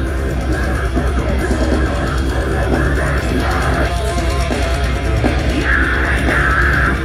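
Deathcore band playing live: heavy metal with a dense, loud, steady wall of low guitar and bass, drums, and repeated bright accents in the second half.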